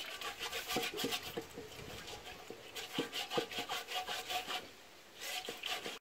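Hand scrubbing against the wet surface of a terracotta clay pot in quick scraping strokes, about five a second, with two short pauses.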